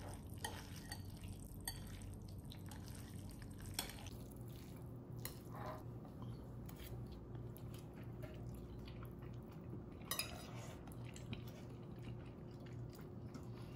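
Faint clinks of cutlery against dishes, a handful of separate ticks spread several seconds apart, the clearest about ten seconds in, over a low steady hum.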